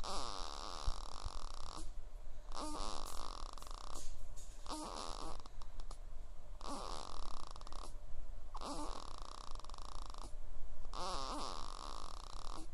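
Baby snoring in a steady rhythm, about one snore every two seconds. Each snore opens with a brief falling pitched sound and then goes into a raspy rush of breath.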